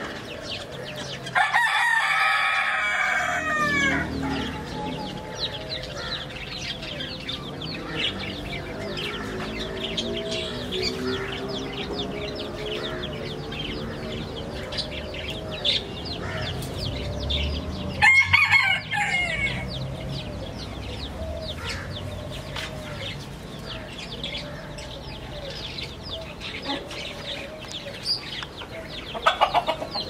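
Chickens in an aviary: hens clucking over and over and chicks peeping, with a rooster crowing loudly about two seconds in and again about midway, and a shorter loud call near the end.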